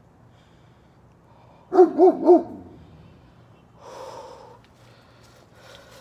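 A dog barking three times in quick succession about two seconds in, then a softer call about two seconds later.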